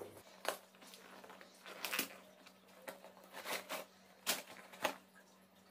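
A shipping parcel's packaging being torn and pulled open by hand, a string of short crinkling, tearing rustles.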